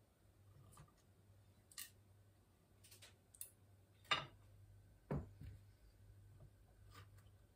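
Near-silent room with a few faint, scattered clicks and light knocks; the two loudest come about four and five seconds in.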